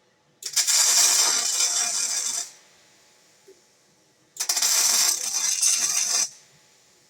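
Arc welding: two welds of about two seconds each, the arc crackling steadily, with a pause of about two seconds between them.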